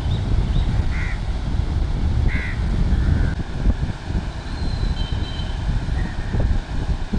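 Wind buffeting the microphone in a loud, gusty low rumble. A bird gives a few short calls about one and two and a half seconds in, and another near three seconds.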